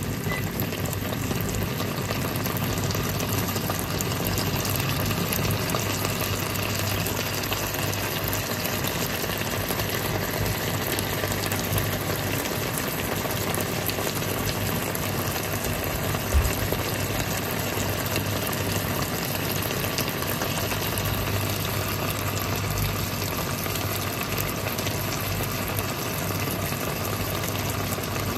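Roasted-chili-paste sauce bubbling and sizzling steadily around surf clams in a frying pan, over a steady low hum. One short knock about halfway through.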